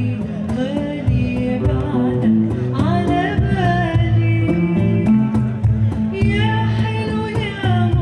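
A woman singing an Arabic song live into a microphone, with an oud plucking the accompaniment.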